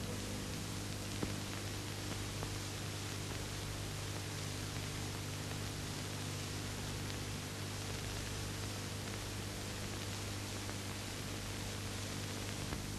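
Steady hiss with a low hum underneath, the background noise of an old recording's soundtrack, with one faint click about a second in.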